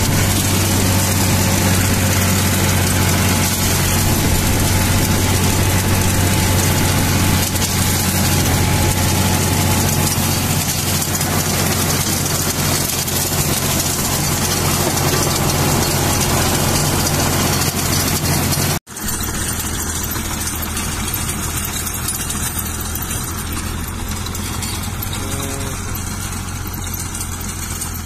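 Tractor engine running steadily under load while driving a rotary tiller through dry soil, heard close up from on the tractor. About two-thirds of the way through it cuts off for an instant and the same tractor and tiller are heard quieter and farther off.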